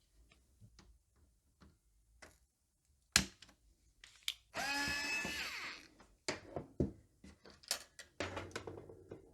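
Small clicks and knocks of test leads, clips and parts being handled and unhooked on a workbench, with a brief pitched squeak lasting just over a second about halfway through that drops slightly at its end.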